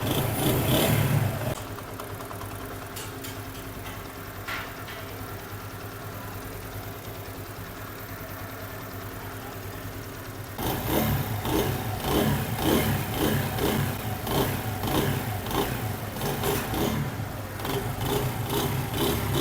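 Motorcycle engine running with its timing chain just replaced. It is revved briefly at the start, then idles steadily, then takes repeated throttle blips from about ten and a half seconds in. The engine sound is judged completely fine, without the extra start-up noise of a worn timing chain.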